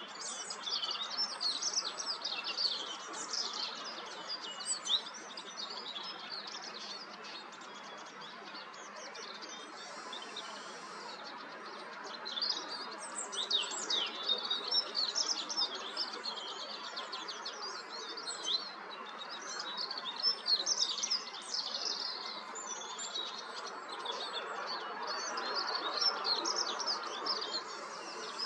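Small songbird singing: rapid, high-pitched warbling and twittering phrases in long bursts, with a quieter stretch of several seconds about a third of the way in, over a steady faint background hiss.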